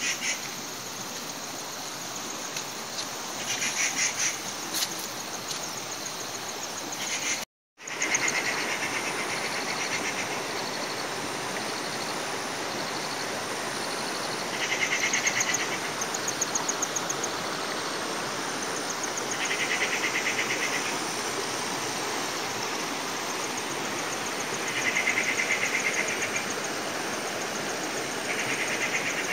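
Insects trilling: rapid buzzing trills of about a second each, repeating every five seconds or so, with fainter higher trills between them, over the steady rush of flowing stream water. The sound cuts out for a moment about a quarter of the way in.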